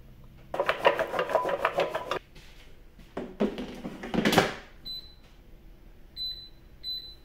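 A rapid clatter of oiled sweet potato cubes shaken in an air fryer basket, then a second clatter ending in a clunk as the basket is pushed into the air fryer. From about five seconds in, the air fryer's control panel gives three short high beeps as its buttons are pressed to set the cooking time and temperature.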